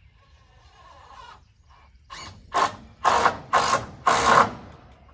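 Cordless impact driver driving a screw in about five short bursts, the last three longer and louder.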